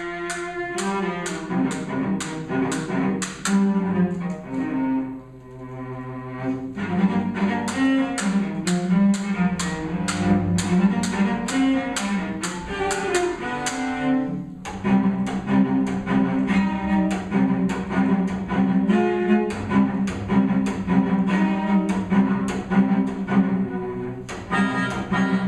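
Cello and melodica duo playing live. The cello keeps a steady chopping rhythm of percussive bow strokes, about three a second, under held melodica tones, imitating the sound of a railroad. The chopping stops for about two seconds not long after the start, then picks up again.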